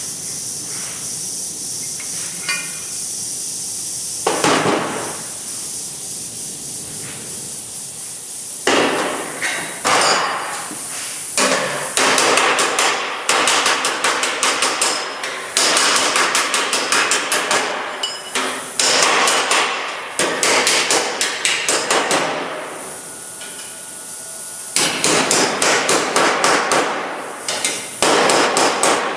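Hammer rapidly tapping on thin automotive sheet metal, in runs of one to three seconds at about five blows a second, each blow ringing briefly, over a steady hiss.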